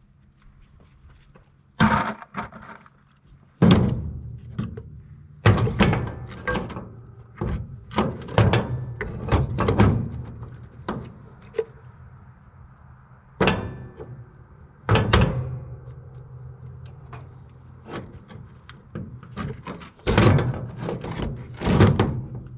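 Irregular knocks, clanks and thumps of metal parts being struck and handled while an air-conditioning unit is taken apart for scrap, some strikes ringing briefly, over a steady low hum.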